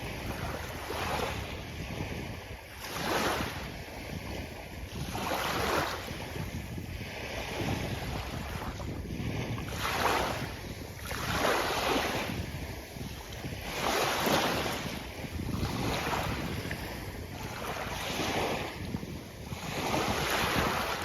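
Sea waves breaking and washing up a beach, surging again every second or few, over a steady low rumble of wind on the microphone.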